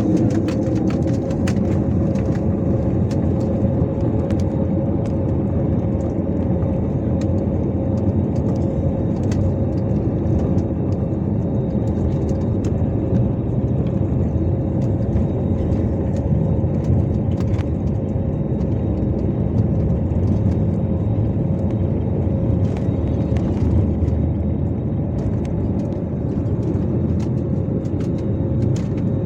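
Steady rumble of an airliner's jet engines heard from inside the passenger cabin, with a constant hum over the deep noise.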